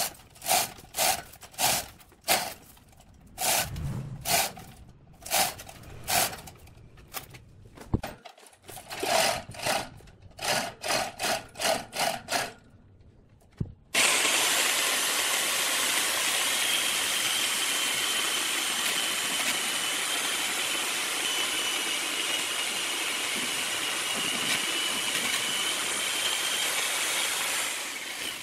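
A series of short rasping strokes, about two a second and quickening, stops; then a cordless electric chainsaw starts running abruptly and keeps going steadily, with a high motor whine.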